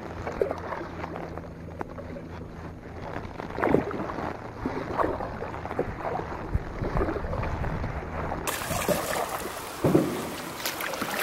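Kayak paddle strokes dipping and splashing in lake water, a few seconds apart, over a steady low background of water and wind.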